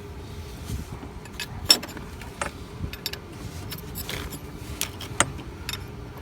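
Irregular light metallic clicks and clinks of a wrench working a coolant hose's threaded fitting, with one sharper click about a second and a half in.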